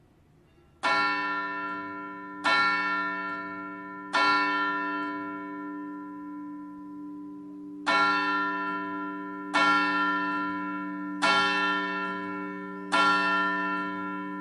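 A church bell struck seven times: three strikes about a second and a half apart, a pause of nearly four seconds, then four more. Each strike rings on and slowly fades under the next.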